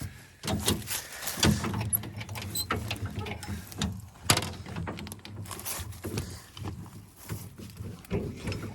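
Irregular metal clanks and knocks as an implement is taken off and the post hole digger is fitted, over the steady low running of an engine.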